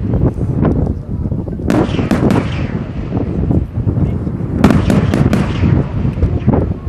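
Aerial firework shells bursting in quick succession over a continuous low rumble of booms, with sharp cracking reports in two clusters, about two seconds in and again near five seconds.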